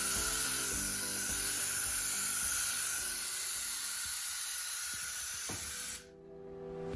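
Aerosol spray can spraying in one long continuous hiss, then cutting off abruptly about six seconds in.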